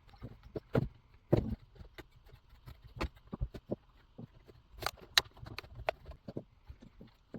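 Irregular clicks, taps and knocks of chainsaw parts being handled and fitted together during reassembly of a STIHL 019, with the sharpest knocks about a second and a half in and again about five seconds in.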